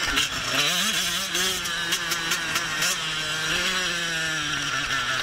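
Two-stroke 85 cc motocross bike engine, a Husqvarna TC 85, revving up and down repeatedly as it is ridden, with its pitch rising and falling, and a few sharp clicks.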